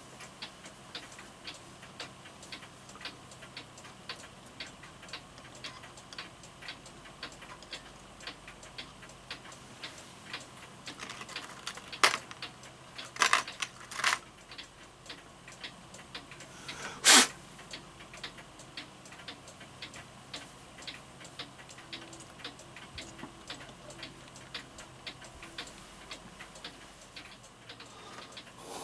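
Mantel clock movement running, its escapement ticking in a quick, even rhythm. A few louder knocks come partway through, the last the loudest.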